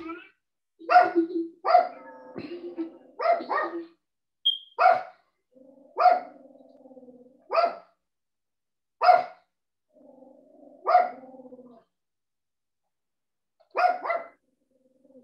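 A dog barking repeatedly: about a dozen sharp barks one to two seconds apart, some in quick pairs, with lower, drawn-out sounds between several of them.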